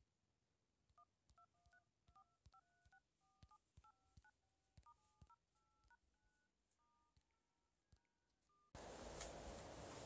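Faint DTMF keypad tones from an LG G5's in-call dialpad: a quick run of short two-tone beeps as the keys 1 to 9, *, 0 and # are tapped one after another. The beeps stop a little before the end, and a low hiss comes in.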